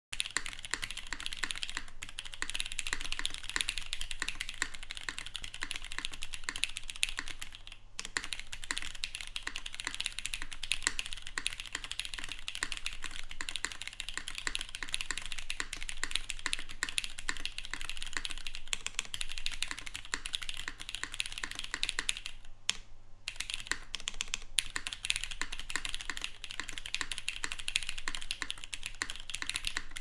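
Fast, continuous typing on an F1-8K custom mechanical keyboard with JWK Cotton Candy switches, GMK keycaps and a polycarbonate sandwich plate with O-rings: a dense stream of keystroke clacks. The typing breaks off briefly about eight seconds in and again around twenty-three seconds.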